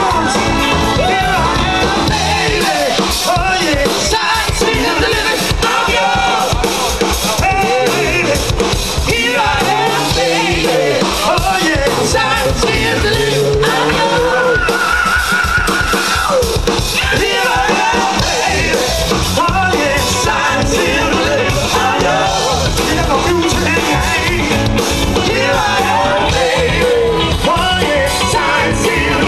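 Live rock-and-roll band (drums, electric guitar, bass and keyboards) playing loudly, with several singers trading and sharing lead vocals.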